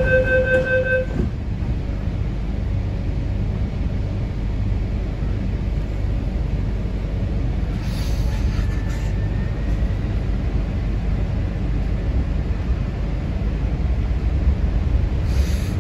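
MTR C-train's door-closing chime beeps and ends about a second in. The metro car then hums with a steady low rumble at the platform, with a short hiss of air about halfway through and again near the end, and a faint rising whine in between.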